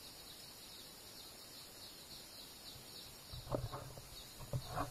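Faint outdoor ambience with steady high-pitched chirping of wild creatures, broken by a few short, louder noises about three and a half and four and a half seconds in.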